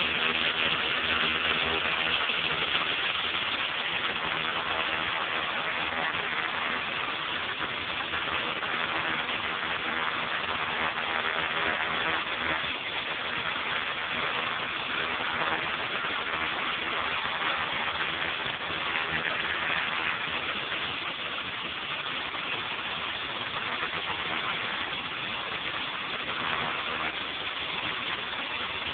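A pressure washer's engine running steadily, under the constant hiss of a turbo nozzle's high-pressure water jet blasting a concrete sidewalk.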